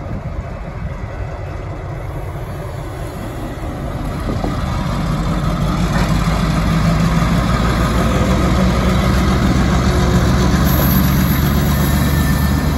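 Diesel switcher locomotive's engine running as it moves slowly toward the listener, with a steady low drone that grows louder over the first half and then holds.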